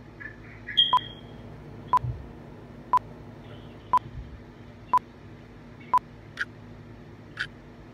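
A mobile phone on speaker giving short, even beeps about once a second, six in a row, then three fainter, higher clicks at the same pace, while a dropped call is being reconnected.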